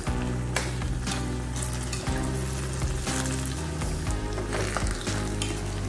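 Ground egusi seed sizzling as it fries in hot oil in a pot, while a metal spoon stirs and turns it with soft scraping. Background music plays underneath.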